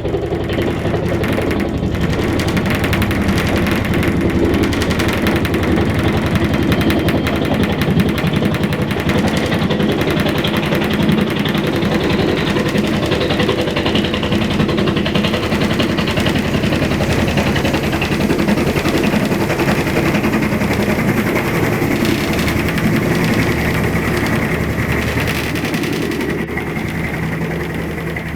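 UH-1 Huey helicopter running, its main rotor beating out a rapid, steady blade slap over the engine, with a thin high turbine whine coming up in the second half.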